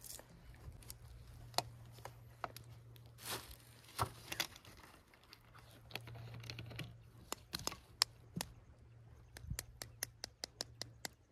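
Faint sharp clicks and crackles of a knife blade tapping and scraping the shell of an egg, ending in a quick run of light ticks.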